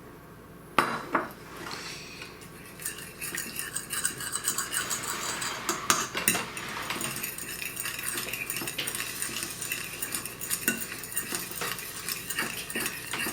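Eggs being beaten for an egg wash: a utensil clicking rapidly against a bowl, starting a couple of seconds in after a few sharp knocks.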